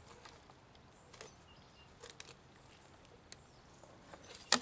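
Fillet knife cutting a halibut on a cutting board: scattered faint slicing and scraping sounds, with a sharp click near the end.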